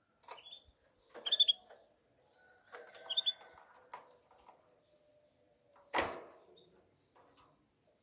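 Caged canary giving a few short, sharp chirps in the first three seconds. About six seconds in there is a single brief flutter and thump as it flaps between perches.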